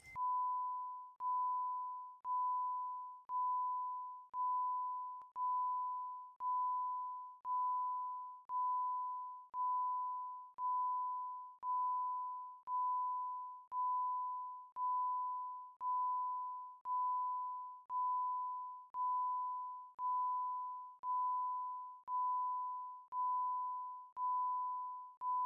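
A single high electronic tone beeping steadily about once a second, each beep fading away, in the manner of a level-crossing warning bell. It is perfectly clean with no background at all, a sound laid over the footage rather than picked up outdoors.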